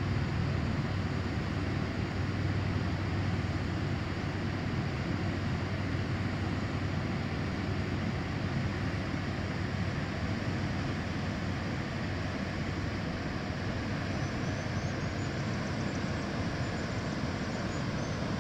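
Whitewater rapids of the Kootenai River rushing below the falls: a steady, even rush of water.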